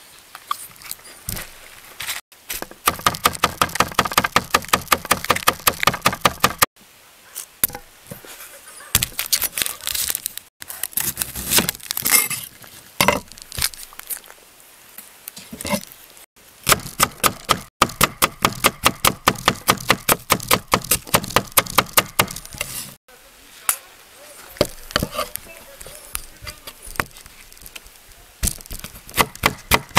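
Broad-bladed kitchen knife chopping vegetables on a wooden cutting board: fast, even runs of strokes about five a second, with slower single cuts and knocks between the runs.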